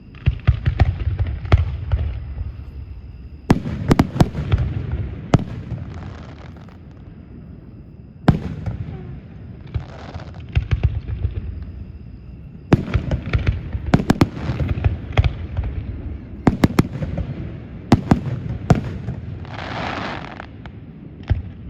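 Aerial fireworks bursting in rapid volleys of sharp bangs with a rumbling low echo, a fresh cluster every few seconds.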